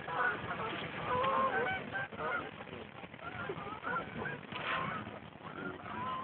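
A flock of birds calling as they fly overhead: many short calls overlapping, thinning out near the end.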